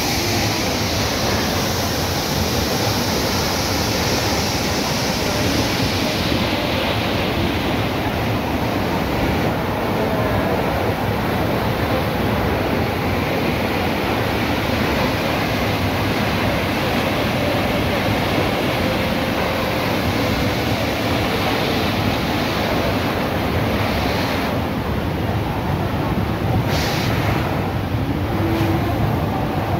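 Large mountain waterfall: a steady, loud rush of water pouring onto rocks and churning down the stream below, a little hissier for the first several seconds.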